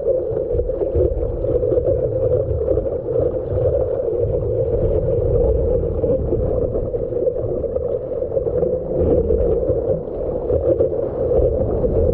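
Steady, muffled rush of ocean water and wind on a GoPro's microphone while out surfing.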